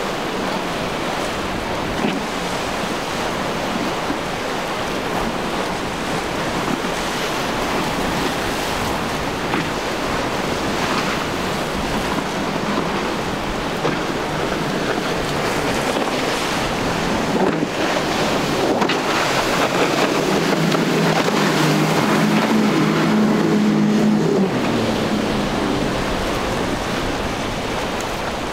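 Surf and choppy water with wind buffeting the microphone. About twenty seconds in, the hum of boat outboard engines swells for a few seconds and then fades.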